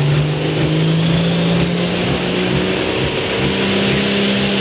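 Turbocharged diesel engine of a pulling tractor running hard, its pitch climbing slowly and steadily. A high hiss rises in pitch above it.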